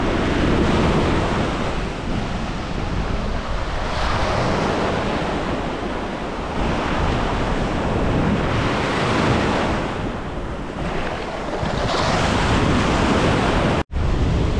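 Ocean surf breaking and washing up the sand in repeated surges every few seconds, with wind buffeting the microphone. The sound cuts out for an instant near the end.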